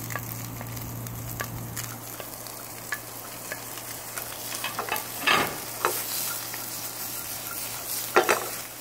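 Diced onion, celery and bacon sizzling in a frying pan while a wooden spatula stirs them, scraping and tapping against the pan with many small clicks. Two louder scrapes stand out, about five and eight seconds in.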